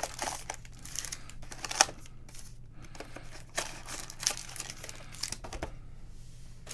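Foil trading-card packs crinkling and rustling as they are pulled from an Illusions football card box and handled, in irregular crackles with one sharp click about two seconds in.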